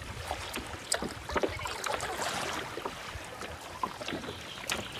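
Kayak paddles splashing and dripping in the water, with scattered small slaps and a longer wash of water about two seconds in.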